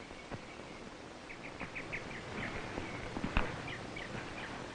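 Birds chirping in short runs of quick, high notes over a faint hiss, with a couple of soft knocks.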